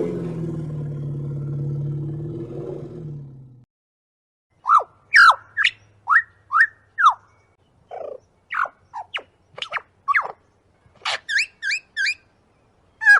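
Dinosaur creature sound effects: a low roar that fades out over the first few seconds, then after a short pause a string of quick, high chirps and squeaks, each sweeping up or down in pitch, with a fast run of three near the end.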